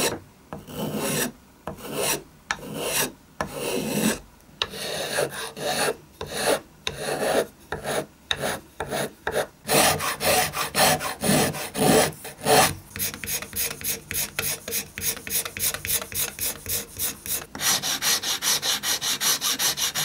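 Hand tools shaping the sides of an ebony violin fingerboard to follow the neck: uneven scraping and rubbing strokes at first, then quick, even file strokes about four a second from about halfway, growing brighter and denser near the end.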